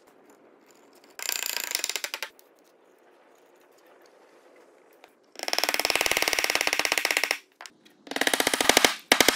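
A mallet driving wooden draw-bore pegs into a breadboard end: three bursts of very rapid, sharp blows, the loudest and longest about five to seven seconds in and the last near the end.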